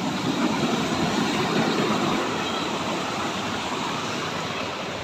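Muddy, swollen stream rushing over boulders in a small cascade: a steady rush of white water that slowly fades toward the end.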